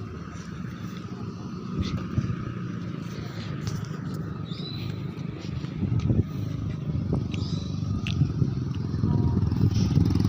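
A small engine running, growing steadily louder toward the end, with a few sharp knocks now and then.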